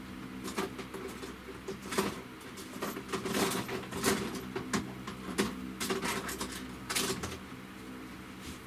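Irregular clicking and rattling of small hard objects being handled and rummaged through, a few clicks a second at its busiest, over a steady low hum.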